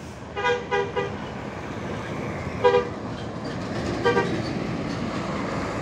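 Intercity bus horn sounding a two-tone toot: three quick blasts about half a second in, another near the middle, and a last one about four seconds in, over the bus's engine running as it pulls past.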